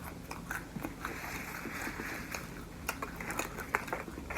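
Close-miked chewing of food, with irregular sharp wet mouth clicks and a brief patch of soft noise about a second in.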